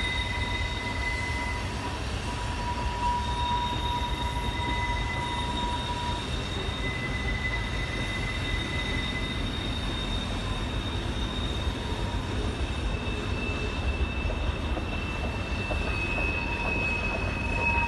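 Freight train cars rolling around a curve: a steady low rumble from the wheels on the rails, with high-pitched steel wheel-flange squeals at several pitches that come and go, each lasting a few seconds.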